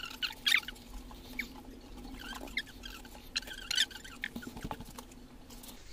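Gloved hands pressing and patting potting soil around a replanted ginger plant in a pot, making short scratchy rustles in bursts, most of them near the start.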